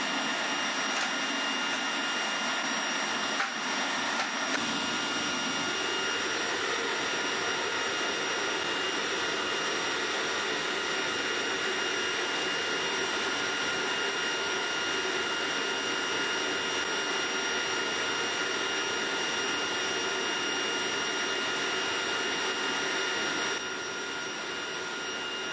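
Burner of a homemade metal-melting furnace running at full fire: a steady rushing hiss with a thin high whistle over it, dropping slightly in level a couple of seconds before the end.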